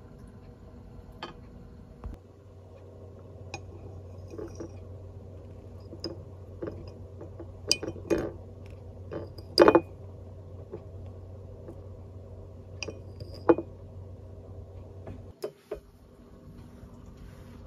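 Chopsticks and tableware clicking and clinking against ceramic dishes during a meal: a string of light taps with a few louder knocks around the middle. A low steady hum lies underneath and cuts off suddenly near the end.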